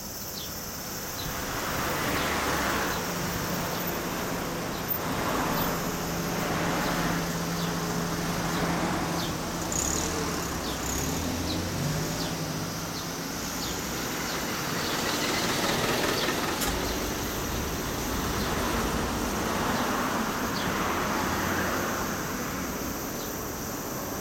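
Road traffic: motor vehicles passing one after another in several swells, with a steady engine hum underneath for part of the time that steps up in pitch once, about twelve seconds in.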